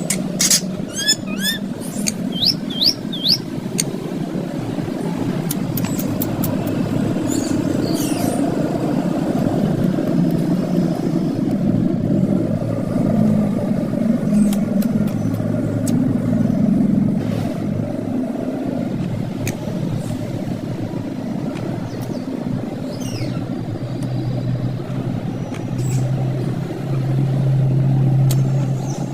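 Steady low rumble of motor traffic, with an engine growing louder near the end. A parrot gives a few short, high chirps about a second in and once or twice later.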